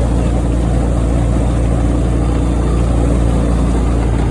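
Small car engine running steadily at an even speed.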